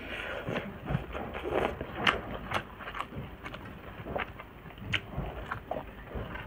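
Close-up eating sounds: chewing with irregular mouth clicks and smacks as a fried piece is bitten and eaten by hand, with fingers working rice on a steel plate.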